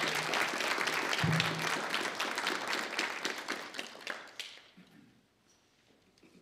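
Congregation applauding, dying away after about four seconds, while the last low held notes of the song's music end about a second and a half in.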